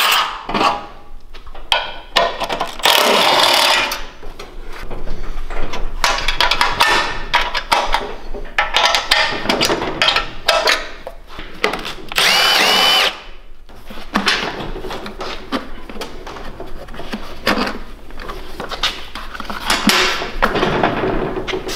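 A Milwaukee cordless impact tool runs in short bursts of about a second, spinning out bolts as the muffler, airbox and gas tank come off a Predator 420cc engine. Between the bursts, loose metal parts and bolts clatter and click.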